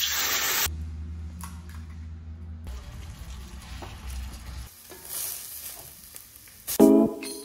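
Food frying in a pan: a loud burst of sizzling as grated tomato is poured into the hot pan, then quieter sizzling and stirring with a spatula. Music starts near the end.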